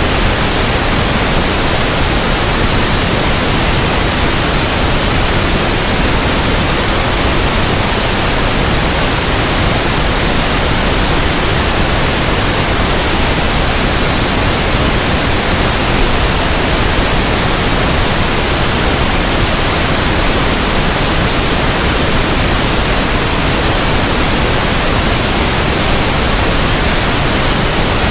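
Steady pink noise: an even, unbroken hiss across all pitches, held at a constant level.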